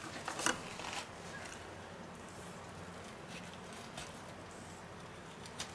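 Knife picked up off a wooden cutting board and carving a roast goose breast on the bone, with a few faint clicks and taps of the blade and handle against the board and bone.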